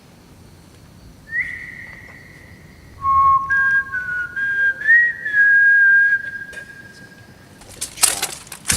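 A person whistling a few long held notes, with small slides in pitch between them. A short burst of scraping noise comes near the end.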